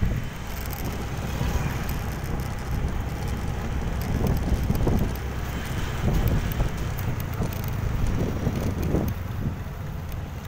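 Motorcycle ride heard from a handlebar-mounted phone: wind buffeting the microphone over a steady low rumble of engine and road, swelling and easing unevenly.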